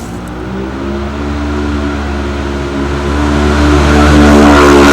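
A motor vehicle's engine running at a steady pitch, growing steadily louder as it comes closer.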